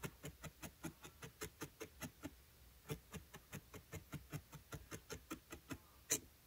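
Felting needle jabbing wool into a foam felting mat: a fast, even run of faint clicks, about five or six a second, ending with one sharper click near the end.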